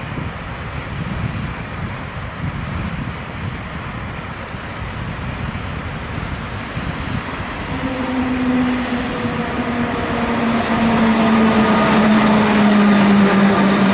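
Newag Griffin EU160 electric locomotive approaching with an intercity train: a low rumble that grows louder, then from about eight seconds in a steady whine from its traction drive whose pitch slowly drops as it comes close.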